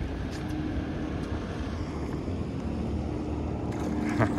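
Steady low hum of a fishing boat's idling motor under wind noise, with a hooked salmon thrashing and splashing at the surface alongside; the splashing grows near the end, with one sharp splash just before the end.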